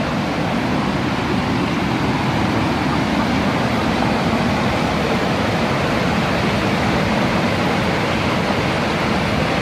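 Muddy floodwater rushing in a torrent over a stone wall and churning below it: a steady, unbroken rush of pouring water.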